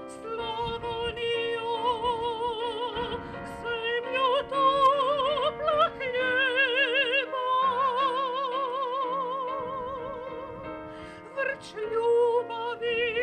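A woman singing in a classical, operatic style with wide vibrato, over sustained accompanying chords. Near the middle she holds one note for about three seconds.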